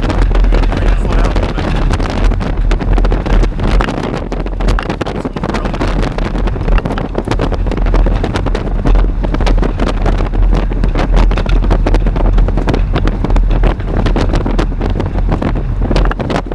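Strong gusty wind buffeting the microphone, a loud low rumble with many sharp ticks and taps through it.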